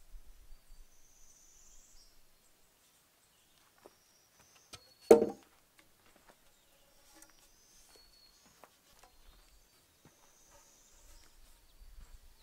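A single loud wooden knock about five seconds in, a spruce log striking wood as it is handled, with a small click just before it. Faint high bird chirps come and go around it.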